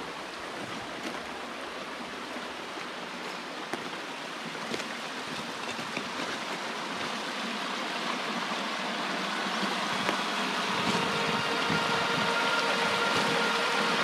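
Water rushing along a narrow stone-lined irrigation channel, a steady rushing that grows louder toward the end.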